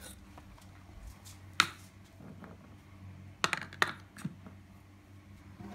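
Small hard dog treats clicking and clattering as a hand picks them from a pile on a hard surface, a quick run of sharp clicks a little past halfway. One louder sharp click comes about a second and a half in, over a low steady hum.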